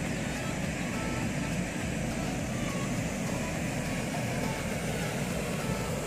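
Steady rushing noise of river water flowing over rocks.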